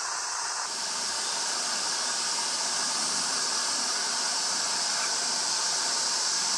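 Steady high-pitched hiss of outdoor background noise, changing slightly in character less than a second in.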